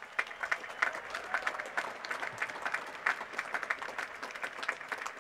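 Large audience applauding, many hands clapping together.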